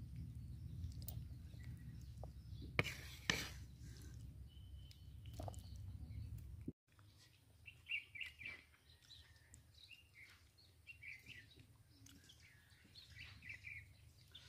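A low rumble with a couple of sharp clicks, then it cuts out and small birds chirp faintly and intermittently.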